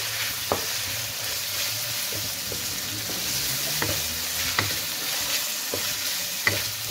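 Diced chicken breast and onion sizzling in hot oil in a pan, stirred with a wooden spatula. Now and then the spatula gives a sharp tap or scrape against the pan.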